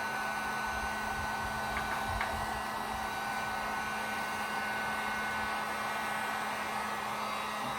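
Electric heat gun running steadily, blowing hot air with a steady hum and a thin high whine. It is heating a BOA heat-shrink clamp so that it shrinks tight onto the hose.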